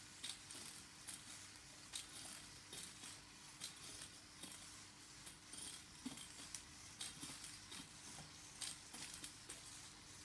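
Servo-driven hexapod robot walking, its leg servos and feet making faint, irregular clicks and ticks several times a second over a low steady hum.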